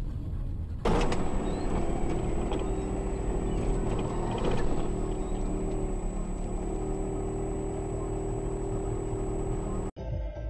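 Car engine and road noise as heard by a dashcam, steady with a few held tones; it jumps suddenly louder about a second in and cuts off abruptly near the end.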